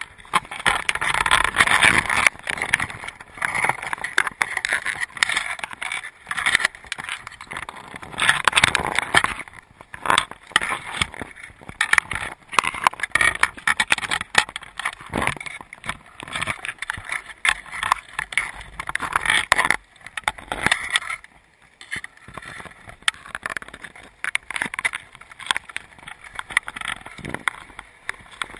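Crabs crawling over an underwater camera in a crab trap: dense, irregular clicking and scraping of shells and legs against the housing, swelling and easing in waves.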